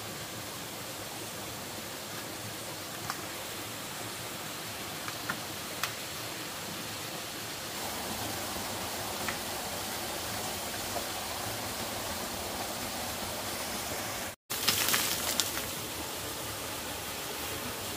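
Steady rushing noise with a few light clicks. It thickens slightly about halfway through, drops out for an instant about two-thirds of the way in, then returns with a short cluster of louder clicks and knocks.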